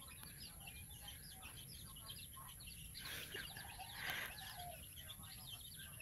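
A flock of small birds chirping continuously, many short high calls overlapping, with two brief rustles about three and four seconds in.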